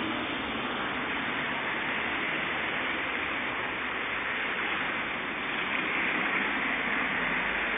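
Heavy rain falling steadily, a continuous hiss of downpour on the pavement and street. The hiss swells a little about six seconds in as a car's tyres pass on the wet road.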